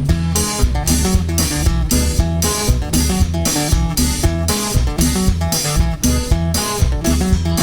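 Instrumental break in a cumbia song: a guitar melody over bass guitar and drum kit keeping a steady dance beat, with no singing.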